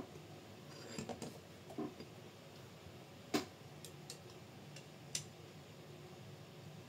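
A few scattered, sharp clicks and taps of small parts and hardware being handled while assembling a scale RC crawler chassis. The loudest click comes about a third of the way in.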